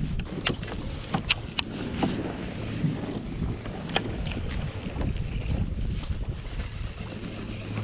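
Wind rumbling on the microphone, with a few sharp clicks and taps from the rod and reel as a small bass is reeled in to the kayak.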